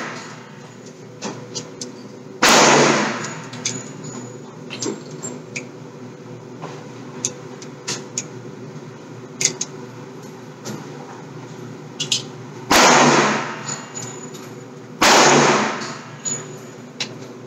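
Three single gunshots, one about two and a half seconds in and two more about twelve and fifteen seconds in, each with a long echoing tail. Fainter clicks and knocks come in between.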